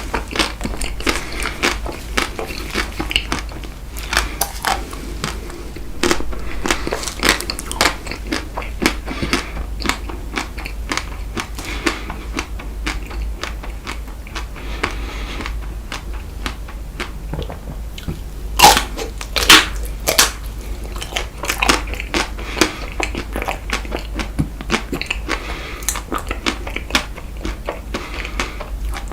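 Close-miked biting and chewing of frozen chocolate-coated ice cream bites: many small crunches and wet chewing clicks, with two louder crunches about two-thirds of the way through.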